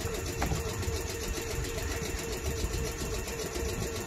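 A South Western Railway electric train standing at the platform with its doors shut, its onboard equipment giving a steady hum over a low rumble.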